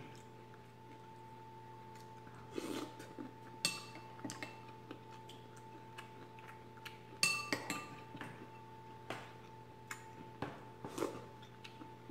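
Spoon clinking and scraping against a ceramic soup bowl while eating chowder: a few scattered light clinks, the sharpest about seven seconds in, with soft eating sounds between.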